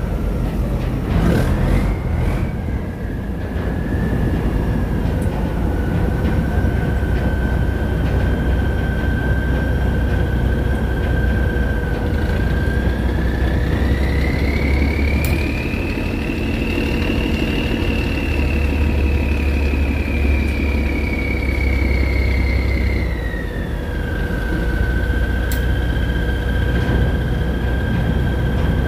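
Boat engine running steadily with a deep rumble and a high whine. Partway through, the whine rises in pitch, holds for about ten seconds, then falls back.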